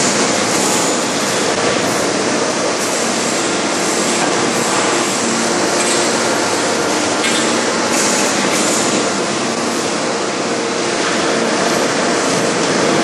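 Steady, loud industrial din of a hydraulic open-die forging press running, with a few brief hissing surges.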